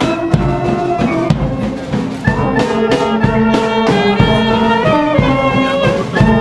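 Brass band music, held horn notes over a steady drum beat.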